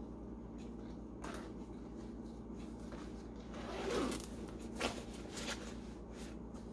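Coat zipper being worked up and down in a few short rasps, the longest and loudest about four seconds in, its slider just squeezed tighter with pliers to stop the zipper separating.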